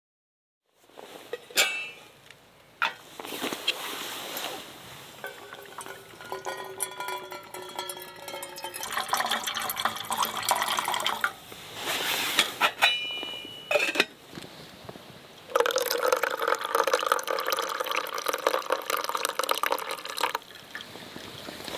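Liquid poured into a cup or pot in several pours, the pitch of one pour rising as the vessel fills. Between pours there are a few sharp clinks of dishes, and one short ringing clink about halfway through.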